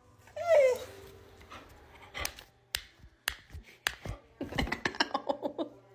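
A dog gives one short, loud whine-like call falling in pitch about half a second in. Then come sharp clicks spaced about half a second apart, quickening into a rapid run near the end.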